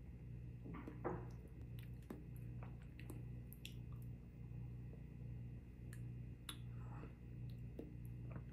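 Black sesame pudding being eaten: soft wet mouth sounds and scattered small clicks over a steady low hum of room noise.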